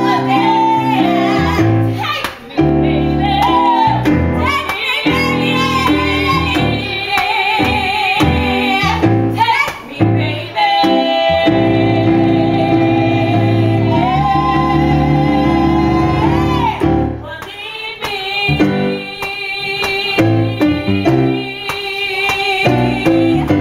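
A woman singing live with piano accompaniment, holding long notes with vibrato over sustained piano chords.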